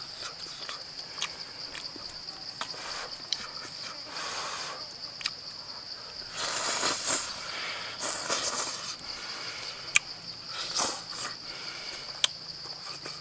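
Insects droning steadily at one high pitch. Over them come the mouth noises of eating: sharp little clicks and several short bursts of chewing and slurping, the longest about six to seven seconds in as a mouthful of greens goes in.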